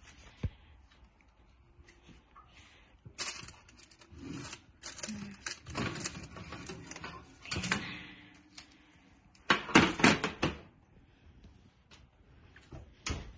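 Oven rack pulled out and a metal baking pan lifted out and set down on a glass-ceramic stovetop: a string of metal knocks, scrapes and rattles, the loudest clatter about ten seconds in.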